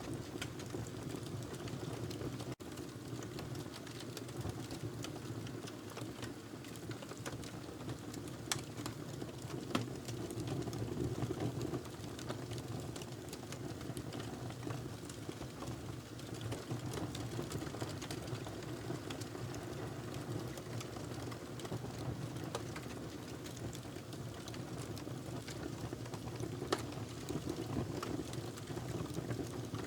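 Wood fire burning in a fireplace: a steady low rush of flames with sparse crackles and pops, a few sharper pops about a third of the way in and again near the end.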